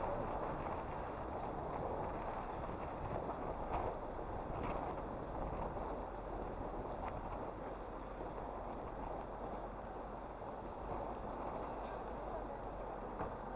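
Steady rushing noise of street traffic on a city avenue, with a few faint clicks about four and five seconds in.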